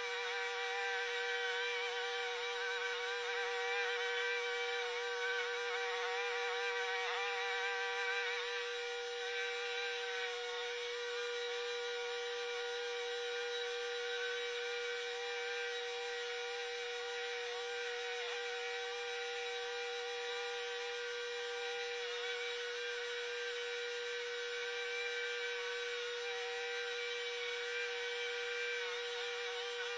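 Lawn mower engine running, played back about eight times fast so it sounds like a buzzing bee. Its pitch wavers slightly as it works, over a steady high hum.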